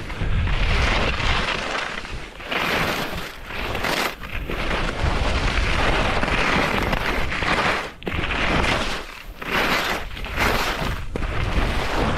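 Skis scraping over firm, bumpy snow in bursts as each turn is made, with brief lulls between turns, over a low rumble of wind on the microphone.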